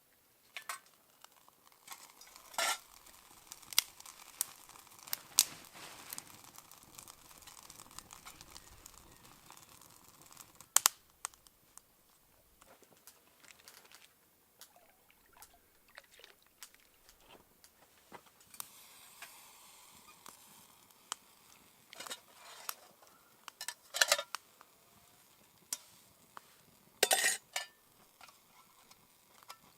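Camp cookware and utensils clinking and clattering in scattered, irregular knocks, with a faint hiss partway through.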